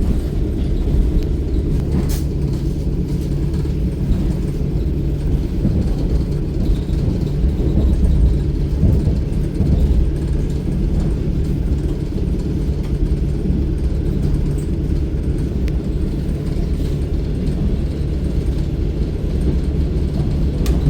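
Suburban electric train running along the track, heard from inside the carriage: a steady low rumble of the wheels and car, with a few light clicks.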